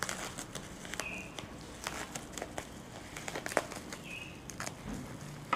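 Scissors cutting through bubble wrap and packing tape: crinkling plastic with a run of irregular sharp snips and crackles.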